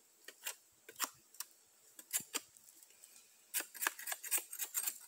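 A Timber Wolf ClaimStaker bowie knife's stainless clip-point blade chiseling bark off a stick in short strokes: a string of sharp, irregular cuts and scrapes that come faster about three and a half seconds in.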